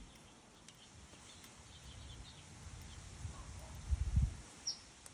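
A low rumble with a brief louder swell about four seconds in, then a single short bird chirp sweeping downward near the end. A few faint ticks sound through it.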